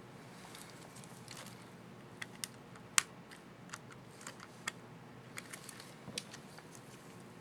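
Irregular small plastic clicks and snaps, about a dozen, from an HP ProBook 4540s laptop key as its keycap is worked onto the scissor retainer and pressed. The sharpest click comes about three seconds in.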